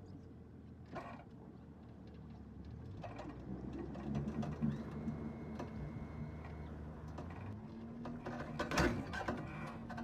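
Boat's outboard motor running, pushing the hull up onto the trailer, its steady hum getting louder from about three seconds in. Near the end a burst of metal clanks and rattles as the bow rides onto the trailer's roller and latch.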